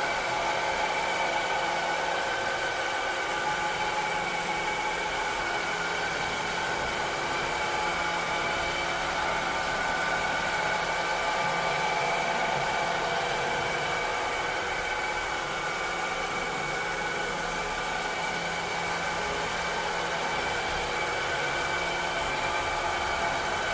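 Cleaning robot running steadily: an even motor whir and hiss with several steady whining tones held throughout, no change in speed.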